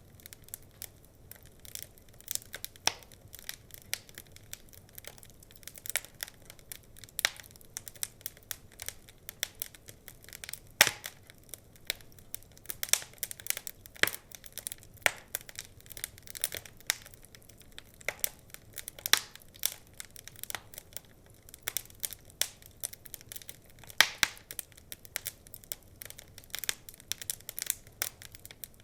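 Wood fire crackling: many irregular sharp pops and snaps, a few louder ones, over a faint hiss.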